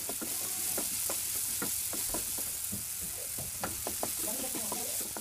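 Chopped onion, carrot and capsicum sizzling in oil in a non-stick pan, a steady hiss, while a spatula stirs them with many short, irregular scrapes and taps against the pan.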